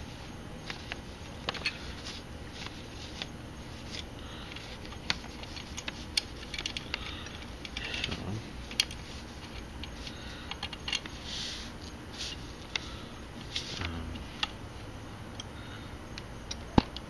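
Irregular small metallic clicks and taps of a hand wrench and bracket parts being handled against a motorcycle engine's finned cylinder head, with one sharper click near the end.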